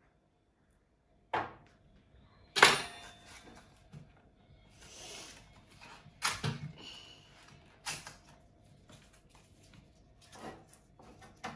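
Kitchen handling sounds while greasing a cake pan with butter: after a second of silence, a few scattered sharp knocks and clatters of utensils and the pan on the counter, the loudest about two and a half seconds in, with soft rubbing between them.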